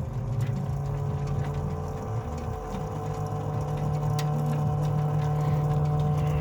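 Gurgling, churning sound with a steady whine after an E70 BMW X5M's engine is shut off, like a washing machine running. The owner suspects the coolant pump or the turbo coolant pump.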